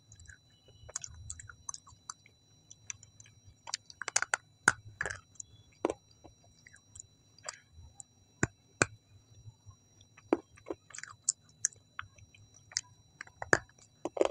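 Close-miked chewing and biting: irregular sharp, wet mouth clicks and smacks as a person eats.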